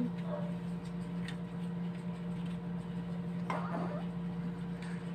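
Chopsticks picking at rice in a plastic container, giving a few light clicks and taps, over a steady low hum.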